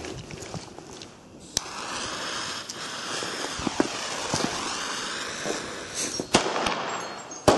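A steady hiss while the fuse of a Weco Big Flashing Thunder firework is lit, starting with a click about a second and a half in. Near the end the firework goes off with a sharp crack.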